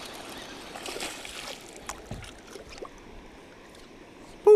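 Flowing river water lapping around a kayak, with a few faint knocks. A short, loud vocal sound at the very end.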